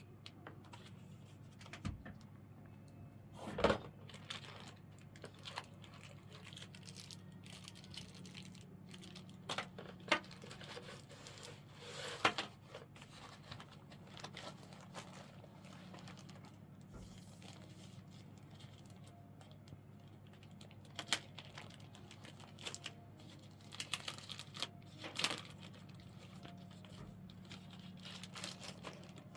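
Packaging being handled: irregular crinkling and rustling with scattered light knocks and clicks, over a steady low hum.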